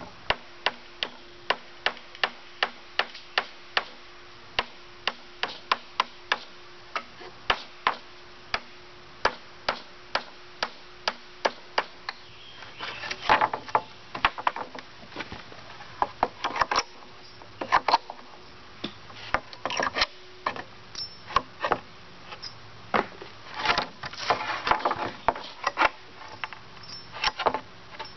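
Claw hammer driving nails through a board into a wooden pallet: light, even taps about two to three a second for the first half, then heavier, irregular blows in clusters.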